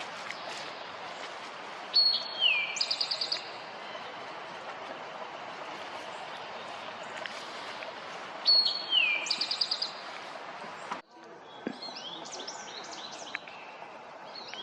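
A songbird sings the same short song twice, about six seconds apart: a clear high note that slurs downward, then a fast run of high notes. The songs sit over a steady rushing background noise. Near the end, after an abrupt change in the background, other birds chirp.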